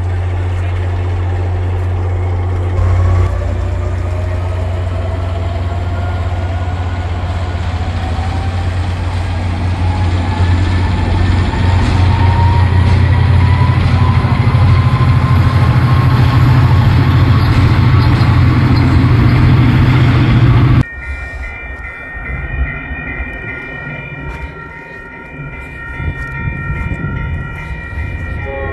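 MBTA diesel commuter locomotive's engine throttling up as it moves its train out: a heavy low rumble that rises slowly in pitch and grows louder about ten seconds in. After an abrupt cut about 21 seconds in, quieter steady high ringing tones sound at a lit railroad grade crossing.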